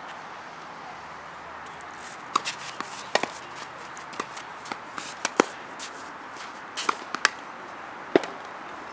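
Tennis rally: a string of sharp, irregularly spaced pops as the ball is struck by racket strings and bounces on the court, starting a couple of seconds in.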